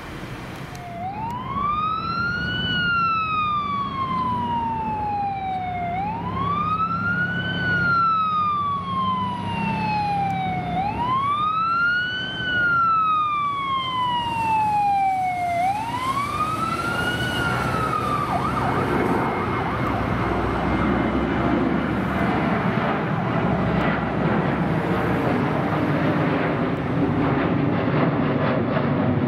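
Emergency vehicle siren on wail: four slow cycles, each rising quickly and then falling over about three seconds, stopping a little past the middle. After it, a loud steady rush of engine noise takes over.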